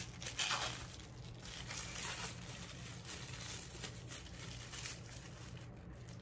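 Tissue paper crinkling and rustling as it is unwrapped from a diamond painting pen, loudest in the first second, then softer.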